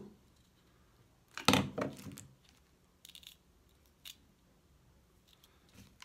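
Hard plastic parts of a mini desk vacuum cleaner clicking and clacking as a nozzle attachment is handled and fitted: one loud clack about a second and a half in, then a few lighter clicks.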